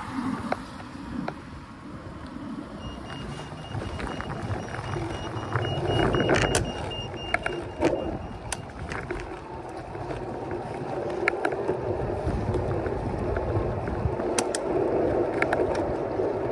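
Wind buffeting the microphone over a steady rolling rumble, with scattered small clicks and a faint steady high whine for several seconds in the middle.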